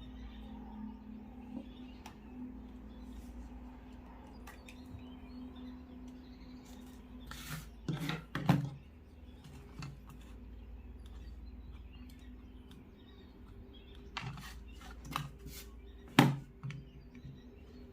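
A faint steady hum, broken by a few sharp knocks and clicks: a pair about halfway through, then a cluster in the last few seconds.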